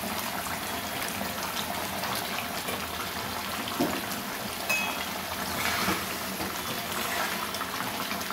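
Mustard-gravy fish curry simmering in a metal kadai over a lit gas burner: a steady, even bubbling noise of the boiling gravy, with a few faint clicks about midway.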